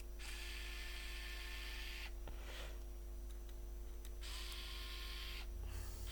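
Steady low electrical hum, with several stretches of soft hiss, each a second or two long, coming and going over it.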